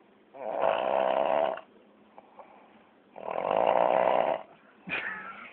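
Sleeping pet snoring: two long snores about three seconds apart, each lasting over a second. A brief, sharper sound comes near the end.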